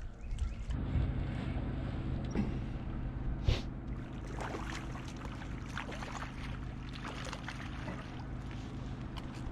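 A boat motor comes on about a second in and runs with a steady hum, while water splashes and laps against the hull.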